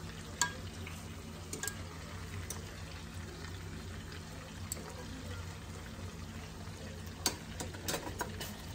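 Chicken thighs frying in oil in a nonstick pan, a steady sizzle, while metal tongs turn them. A few sharp clicks of the tongs against the pan, one about half a second in and several near the end.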